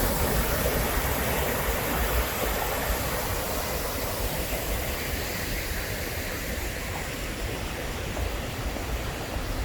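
Steady rushing of falling water from the Mirage volcano lagoon's waterfalls, an even hiss over a low rumble, easing slightly in level.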